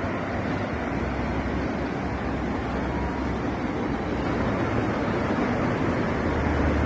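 Steady rushing noise with no distinct events, its energy mostly in the low and middle range.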